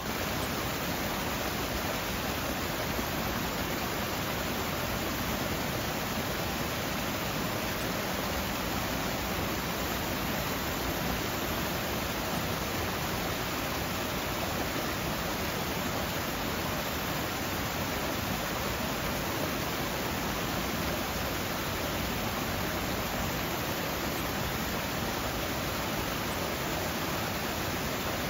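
Water from a rockwork fountain cascading down over the rocks, making a steady, even splashing rush that does not change.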